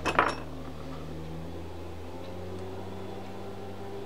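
Steady low electrical hum of several held tones, with a brief quick cluster of small metallic clicks right at the start as small metal reel parts are handled.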